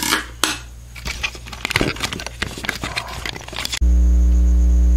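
Irregular clicks and scrapes of hands handling parts at an open computer case. About four seconds in, the sound cuts abruptly to a loud, steady electrical mains hum.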